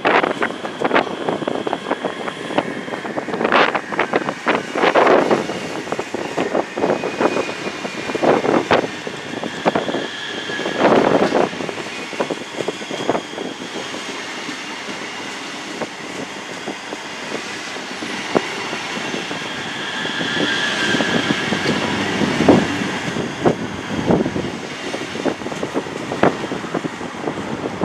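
ScotRail Class 385 electric multiple unit passing close by, its wheels clattering over the rail joints in repeated clusters as each bogie goes over, with a steady high whine underneath.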